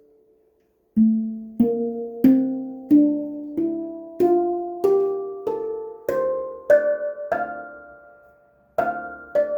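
A 12-note steel handpan played one note at a time up its scale: about a dozen single strikes, roughly one and a half a second, each ringing on and each a step higher in pitch than the last. After the ringing dies away, a quick run of several strikes starts near the end.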